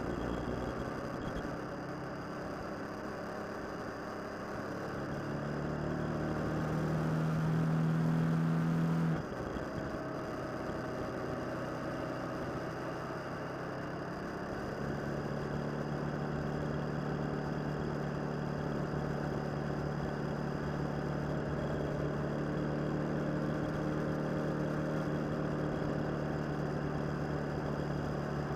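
Motorcycle engine heard from the rider's seat, pulling harder and climbing slightly in pitch for a few seconds, then dropping off sharply about nine seconds in, as on an upshift. It then settles into a steady run at cruising speed.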